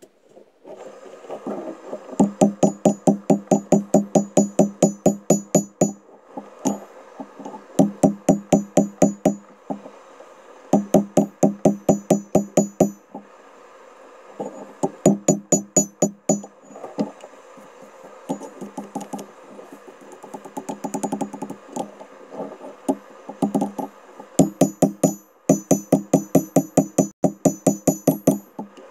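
Hand hammer striking hot steel on an anvil in short runs of quick blows, about five a second, with brief pauses between runs. The hammering tests whether a forge weld holds, and a propane forge's steady hiss runs underneath.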